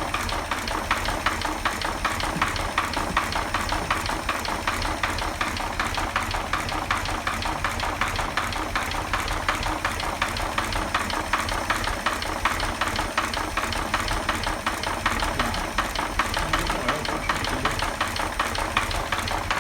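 1940 Chevrolet 216 inline-six engine running at a steady idle with a fast, even knock: worn bearings, with oil pressure down to about 5.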